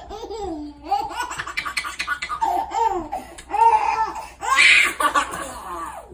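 A young child laughing in a string of short, high-pitched bursts, with one louder burst near the end.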